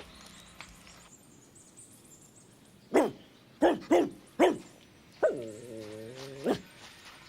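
A dog barking four short barks in quick succession, then letting out one longer, drawn-out call.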